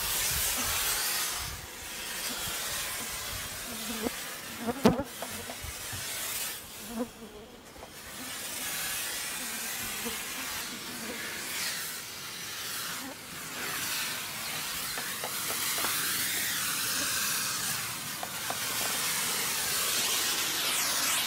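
Handheld thermal insect fogger hissing steadily as it puts out a cloud of fog, dipping and swelling as it is carried around; a sharp knock about five seconds in.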